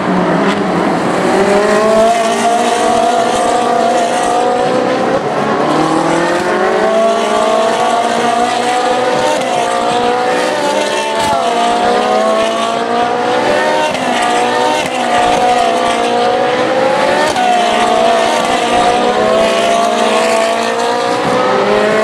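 Ferrari 458 Challenge race cars with 4.5-litre V8 engines accelerating one after another, loud and continuous. Their overlapping engine notes rise in pitch and step down at gear changes.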